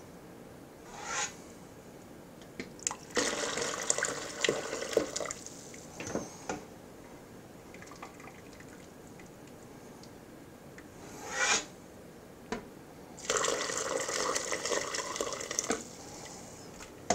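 Chicken stock ladled from a stockpot and poured through a mesh strainer into a plastic container, splashing and trickling in two pours of a few seconds each, with shorter splashes in between as the ladle goes back into the pot.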